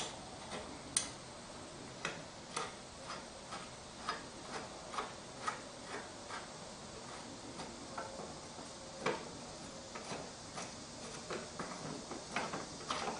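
A wrench clicking on the lawn mower's blade bolt as it is loosened: light, irregular metal clicks, two or three a second, with a few sharper knocks.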